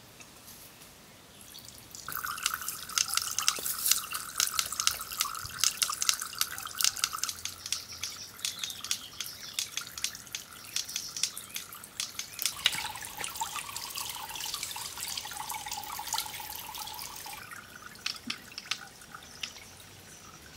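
Water trickling and splashing from the bamboo spouts of a mud fountain into a pond, many small rapid drips, starting about two seconds in. A steady tone sounds under it twice, for several seconds each time.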